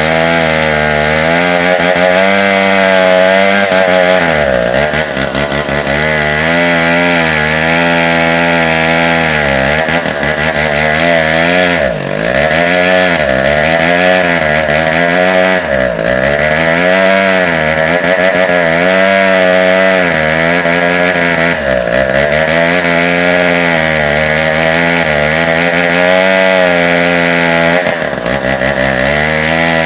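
Tecogold 700 two-stroke chainsaw cutting bengkirai hardwood, running loud and continuous. Its engine pitch wavers constantly under load and dips sharply about five times as the chain bites into the wood.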